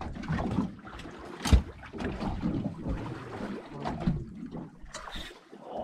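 Wind and water noise aboard a small fishing boat, broken by irregular knocks and a loud thump about a second and a half in.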